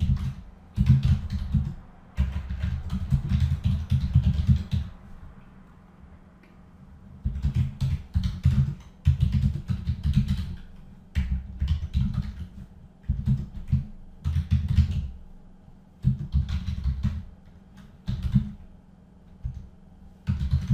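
Typing on a computer keyboard: runs of quick keystrokes in several bursts, broken by short pauses.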